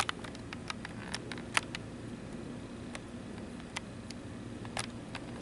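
Handling noise from a handheld camera: a quick run of sharp clicks and taps in the first second and a half, then a few single clicks, over a steady low hum.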